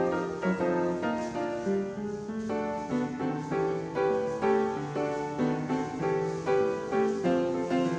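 Background music: a piano tune playing a steady run of notes.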